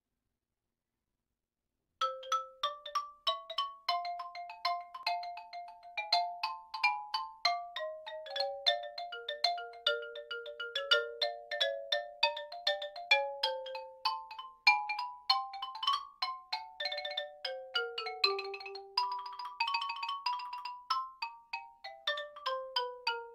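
Solo xylophone played with two mallets, starting about two seconds in: a quick ragtime melody of short, bright struck notes in fast runs, with a few rolled notes in the later part.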